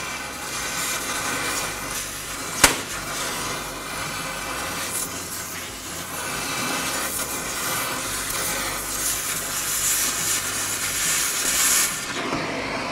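Oxy-acetylene cutting torch hissing steadily as it cuts through rusted steel bumper brackets, with one sharp pop about two and a half seconds in, the popping typical of torch-cutting rusted metal. The hiss drops away near the end.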